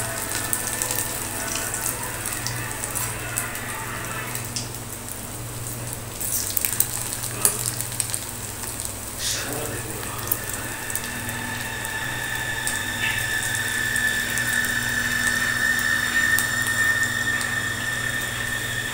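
Mutton kheema patties shallow-frying in hot oil in a nonstick pan, a steady sizzle with a few sharp clicks as pieces go in. A steady high tone joins about ten seconds in.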